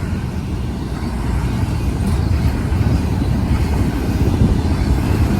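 Union Pacific intermodal freight cars rolling past: a steady, loud low rumble of steel wheels on the rails.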